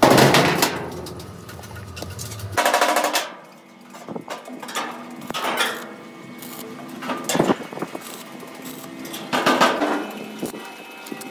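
Several short bursts of stick-welding arc crackle as the electrode tacks a steel pipe handle onto a sheet-metal panel, the first and loudest near the start, with a low hum under the first couple of seconds.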